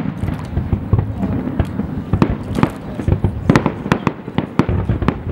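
Fireworks display: a dense, irregular run of shell bursts, bangs and crackles, several a second.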